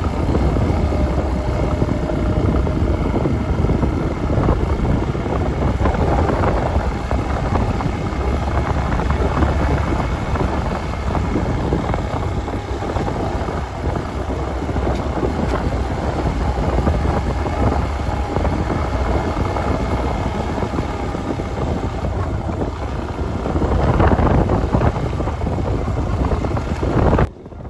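Motorcycle engine running steadily while riding on a dirt road, with wind buffeting the microphone. It cuts off abruptly near the end.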